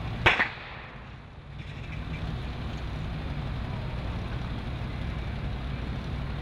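A single loud, sharp crack from the burning building about a third of a second in, over the steady low rumble of a large structure fire.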